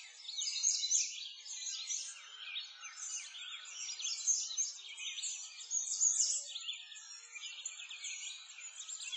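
Many birds chirping at once, a dense, unbroken run of quick, high chirps.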